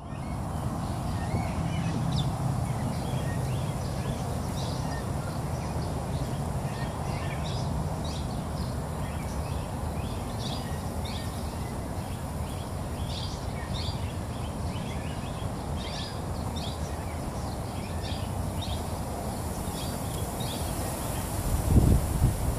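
Many small birds chirping, with short high calls overlapping throughout over steady low background noise. A brief low thump near the end.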